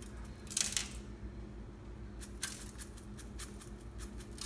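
Spice shaker being shaken over food, its contents rattling in a few short bursts.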